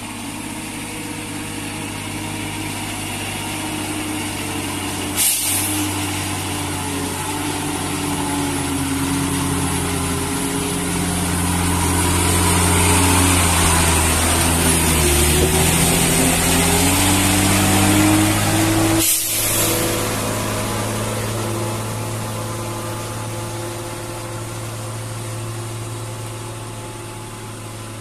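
Tata lorry's diesel engine running as the truck approaches, passes close by and pulls away; the engine note grows louder, peaks mid-way with its pitch shifting, then fades. Two brief hisses, about five seconds in and again near nineteen seconds.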